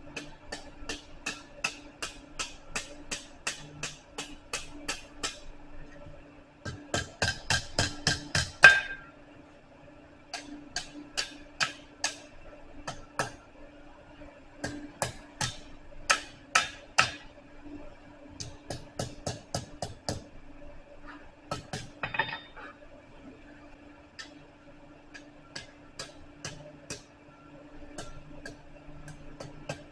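Hand hammer striking hot bar stock on a blacksmith's anvil, bending the end into a scroll: runs of quick ringing blows, a few a second, with a heavier, louder run about seven seconds in.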